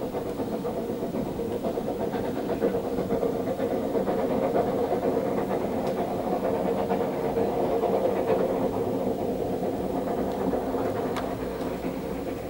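Distant narrow-gauge steam train running along a stone embankment: a steady rumble that swells in the middle and then fades.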